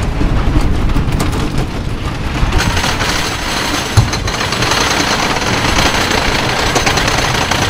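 Wooden roller coaster train rattling along its track and climbing the chain lift hill, with a rapid, steady clacking. A single loud knock about four seconds in.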